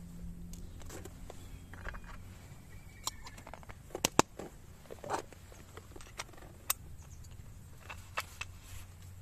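Stainless steel hand coffee grinder being handled and fitted together, giving scattered sharp metallic clicks and taps, loudest as a close pair about four seconds in.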